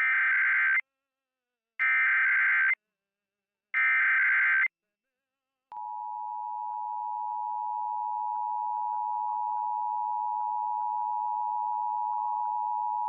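Emergency Alert System test signal: three short bursts of the warbling digital SAME header data tones, about two seconds apart. After a short gap, a little before halfway, the steady two-tone EAS attention signal starts and holds.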